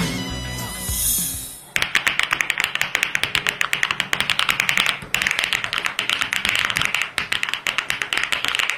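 Music with a whoosh fades out, then fast typing starts on a Luminkey75 V2 mechanical keyboard: a dense run of clicking keystrokes, many a second, with a short break about five seconds in.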